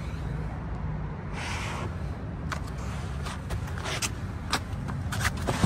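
Steady low motor-vehicle rumble, with a short rushing swell about a second and a half in and scattered light clicks.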